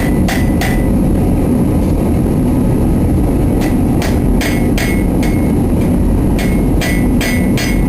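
Hammer striking a knife blank on an anvil in quick, even runs of about three blows a second, each with a short metallic ring. The runs break off for a few seconds about a second in and again past the five-second mark. A steady low rumble runs underneath.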